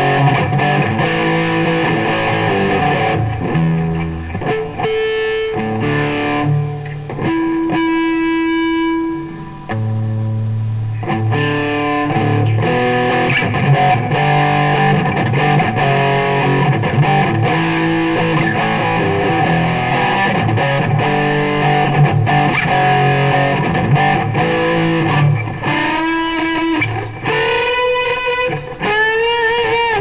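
Electric guitar, a PRS SE Custom with a Seymour Duncan pickup, played with a distorted tone through a Marshall AVT150H head into a cabinet loaded with Celestion Greenback speakers. It plays single-note riffs and lines, with a long held note about eight seconds in and bent notes with vibrato near the end.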